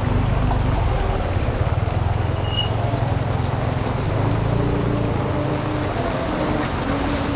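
Torrential rain pouring onto a street, a steady loud rushing, with the low rumble of a motorcycle engine underneath.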